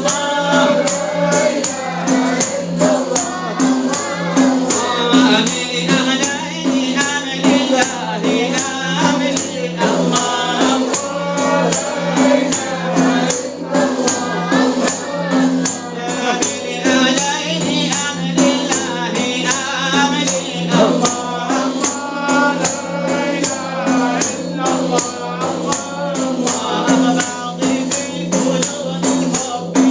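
Voices singing an Arabic Sufi devotional chant (inshad), over a steady, even beat of frame drums with jingles.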